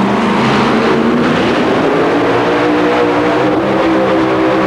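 Supercharged engine of a 1923 Altered T super modified two-wheel-drive pulling truck running hard at high revs as it drags the weight sled. Its pitch dips briefly about a second in, then holds steady.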